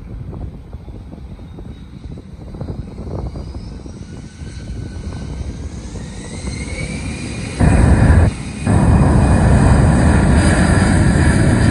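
Airbus A319's CFM56-5B turbofan engines spooling up for takeoff: a whine rises in pitch over a few seconds, then about two-thirds of the way through the sound jumps to a loud, steady roar of takeoff thrust, briefly dropping out for half a second soon after.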